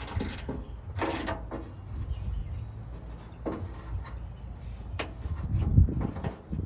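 Scattered clicks and knocks of a hand tool, a socket being fitted to and worked on the bolts of a 2000 Ford Ranger's tailgate lock. Four or five sharp knocks come a second or more apart, over a low rumble of handling.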